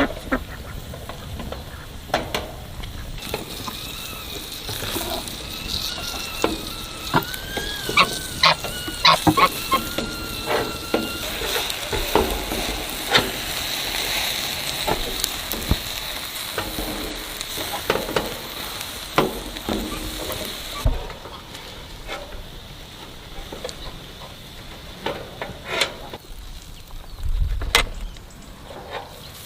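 Food sizzling in a pan while a utensil stirs it and clicks against the pan, with a wavering tone over the first part. The sizzle dies down about two-thirds of the way through, leaving scattered clicks.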